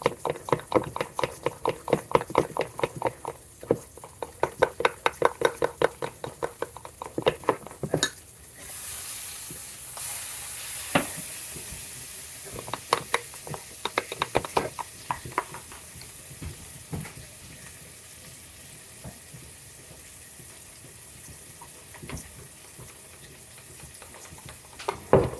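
Pancake batter being beaten fast in a bowl, the utensil clinking against the bowl about four or five times a second for the first eight seconds. Then a louder sizzle from the frying pan where a burger is cooking, with a few scattered clinks and knocks, settling into a faint steady sizzle.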